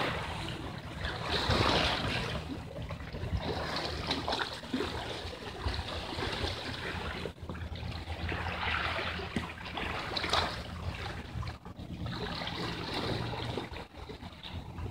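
Small sea waves washing and splashing against shoreline rocks, swelling and falling back several times.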